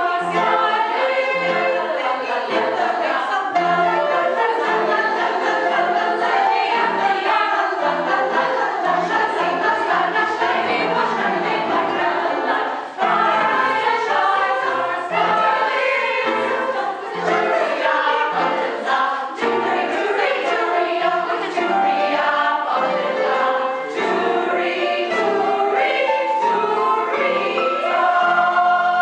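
Choral music: a choir singing.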